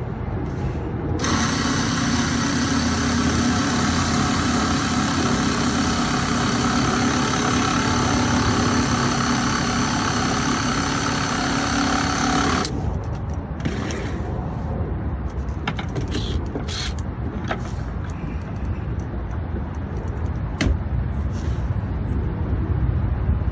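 Power drill running steadily for about eleven seconds as it drills or drives a screw through Trex composite decking, then stops. Scattered clicks and knocks follow as the drill and screws are handled.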